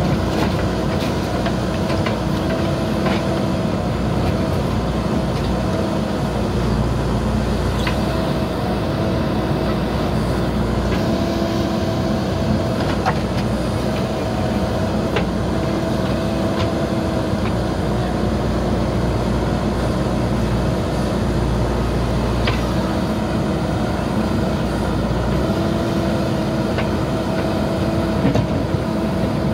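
JCB 3DX backhoe loader's diesel engine running while the rear backhoe digs, with a pitched tone that comes and goes in stretches of a few seconds as the boom and bucket are worked. Scattered short sharp knocks, about half a dozen, from the bucket working the soil and stones.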